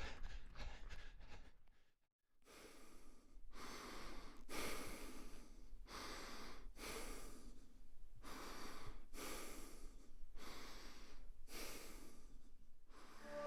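A person breathing heavily in and out, each breath a rush of air about a second long, about ten breaths in a steady rhythm starting after a brief gap. Before the gap, a few quick taps fade out.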